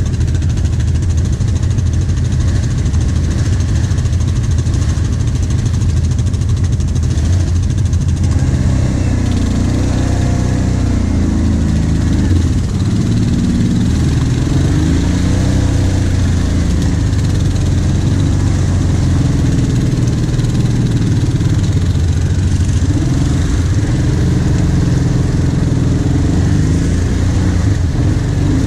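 Kawasaki Brute Force 750 quad's V-twin engine running while the ATV is ridden, its revs rising and falling over and over as the throttle works.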